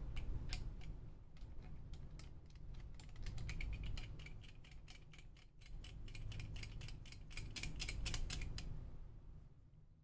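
Small plastic-and-metal clicks and ratcheting ticks as a microphone clip and its thumbscrew are worked onto a slotted metal mounting bar by hand. The clicks are scattered at first, then come as a quick run from about three and a half seconds in, and stop about a second before the end.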